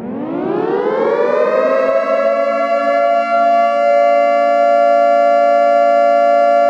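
Air-raid siren sound effect winding up, rising in pitch over the first two seconds, then holding a steady, loud multi-tone wail.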